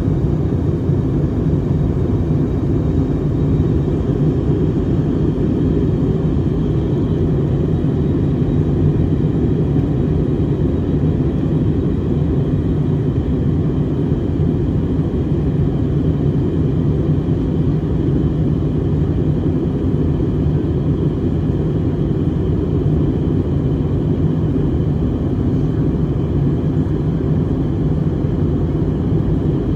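Airliner cabin noise in flight: a steady, unchanging low rumble of jet engines and airflow heard inside the passenger cabin.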